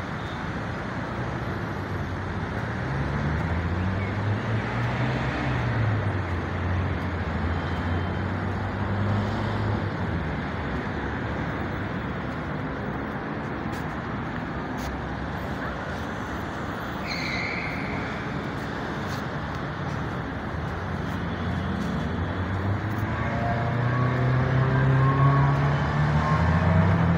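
Road traffic: a steady wash of car tyre and engine noise, with vehicle engines rising and falling in pitch as they pass or pull away a few seconds in and again, growing louder, near the end. A brief high squeal about seventeen seconds in.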